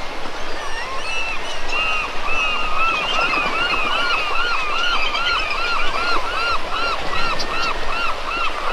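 Rushing water, with a bird calling over it in a fast, steady series of short arched notes, about three a second, starting about a second in.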